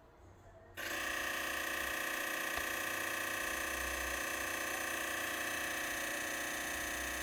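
Whirlpool WTW5057LW top-load washer making a loud, steady high-pitched whine after a load is started. It cuts in abruptly about a second in, after a brief quiet moment, and holds an even pitch and level.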